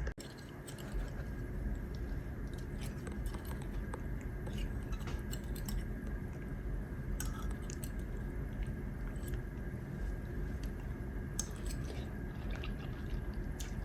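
A person eating: chewing and smacking, with scattered light clicks of cutlery, over a steady low room hum.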